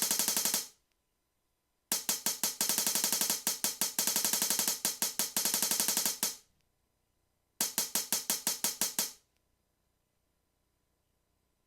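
Hi-hat sample on an Akai MPC stuttered in fast even repeats, about six or seven hits a second, in three runs: a short one at the start, a long one of about four seconds, and a shorter one, then silence.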